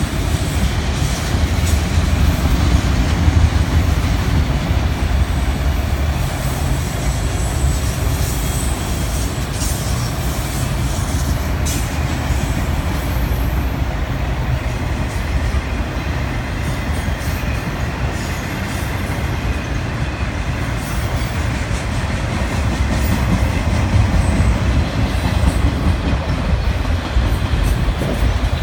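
A long string of enclosed autorack freight cars rolling steadily past: a continuous low rumble of steel wheels on the rails.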